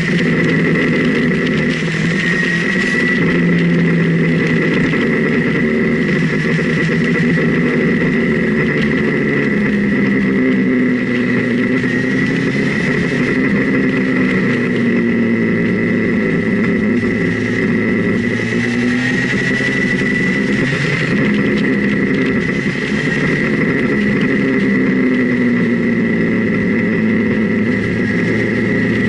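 Motorcycle engine running on a winding road, its revs rising and falling slowly, with wind noise and a steady high whine throughout.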